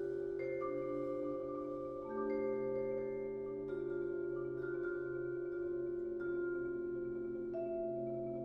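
Vibraphone playing slow chords: a new note or chord is struck every second or two and left ringing over the earlier ones, some held tones wavering slightly.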